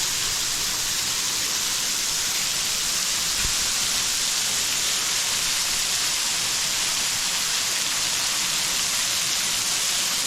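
Waterfall: water pouring down steadily, a loud, even hiss of falling water.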